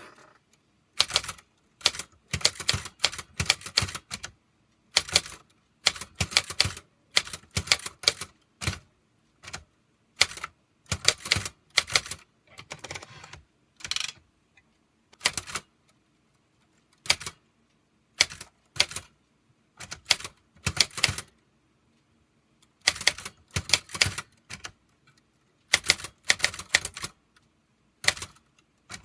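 Manual typewriter typing in uneven runs of sharp key strikes, broken by short pauses between words and lines.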